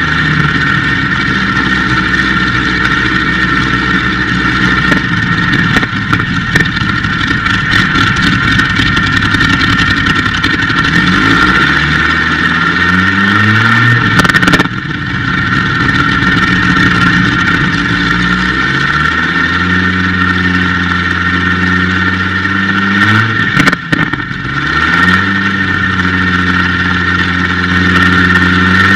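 Rolls-Royce Griffon Mk58 36.7-litre V12 aero engine running and driving its propeller, with the throttle worked up and down. The revs climb over a few seconds, fall back sharply about halfway, rise again, dip briefly near the end, then pick up once more.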